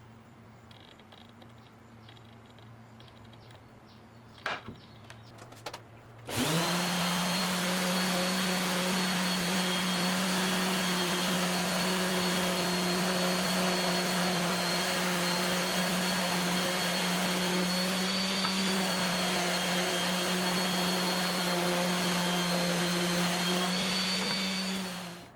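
A few light clicks, then a workshop machine's electric motor switches on about six seconds in and runs loudly and steadily at one pitch, before winding down at the end.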